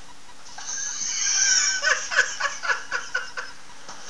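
Hearty laughter: a breathy, wheezing laugh starts about half a second in and breaks into a quick run of short laughing bursts.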